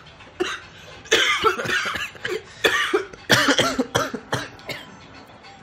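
A person coughing in a fit of about half a dozen harsh coughs.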